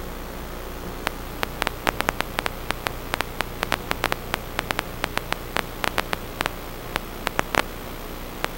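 Steady static hiss with a low hum. From about a second in it is broken by irregular sharp clicks, several a second, which die away near the end.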